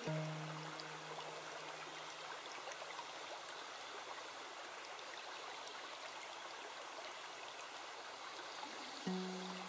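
Steady rushing of a woodland stream. A soft low musical note rings out at the start and fades over a couple of seconds, and another comes in near the end.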